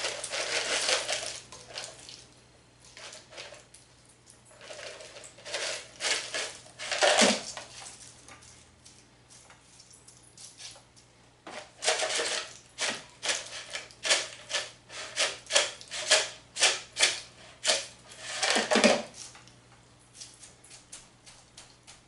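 Crispy fried onions shaken from their canister and pattering onto a casserole in a glass baking dish: dry, irregular rattling, with a quick run of shakes, about two a second, in the second half.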